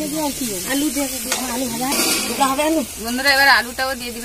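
Chicken sizzling in oil in a large iron karahi while a spatula scrapes and turns it, as the spiced meat is fried down. People's voices talking run over it and are the loudest sound.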